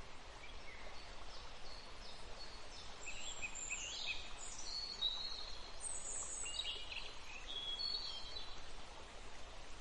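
Several songbirds chirping and whistling in short trills and phrases over a steady outdoor hiss.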